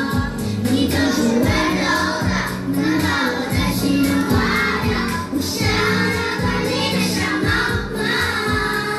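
Children's choir singing in unison over pop-style accompaniment with a steady beat.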